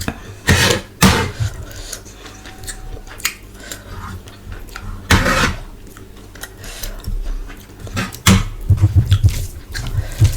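A person eating close to the microphone: chewing and smacking mouth sounds, with a few sharper, louder smacks or crunches scattered through and steady rhythmic chewing near the end.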